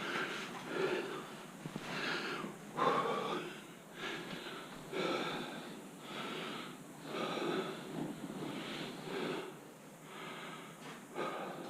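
A person breathing hard and heavily, in and out about once a second.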